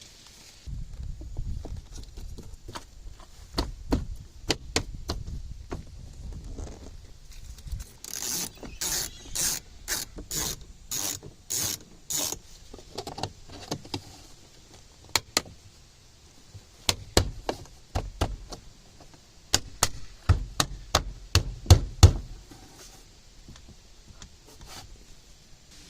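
Hand work on a car door: scattered clicks, knocks and rubbing of tools and plastic or metal parts. About a third of the way in comes a run of about nine quick scraping strokes, roughly two a second. The loudest clicks fall near the end.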